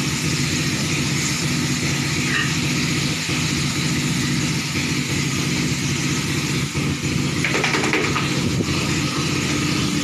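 A pressure washer running steadily, its motor droning under the hiss of the water jet spraying onto the pigs and the concrete pen.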